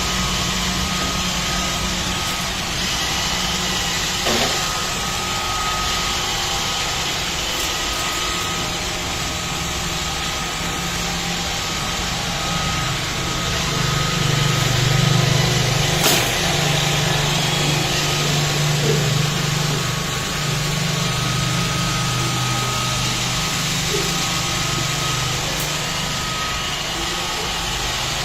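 iRobot Roomba 527 robot vacuum running: a steady motor whir with a thin high whine and a low hum that grows stronger midway, and one sharp click about sixteen seconds in.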